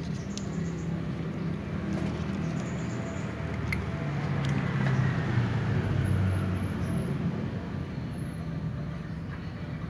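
Low rumble of a motor vehicle driving past, swelling to its loudest about halfway through and then fading, with a faint falling whine as it goes by. A few faint clicks sound over it.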